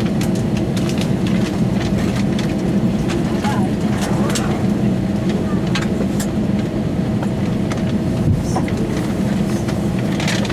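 Airbus A320 cabin noise while taxiing: a steady low hum of the jet engines at idle, with scattered light clicks and faint voices in the cabin.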